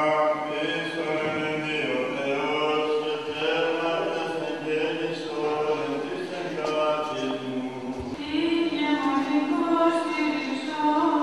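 Byzantine chant sung by a group of male voices: slow, held notes moving in a melismatic line. A new, louder phrase begins about eight seconds in.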